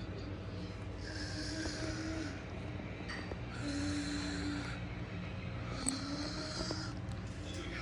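Model train running: a steady low rumble with a wavering mid-pitched whine and a hiss that comes and goes about every second and a half.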